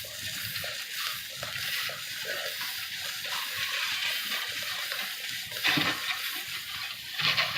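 Air hissing and sputtering out of a tire puncture around a large screw being worked loose, wet with the liquid tire sealant slime inside. The hiss surges louder twice, about six seconds in and again near the end.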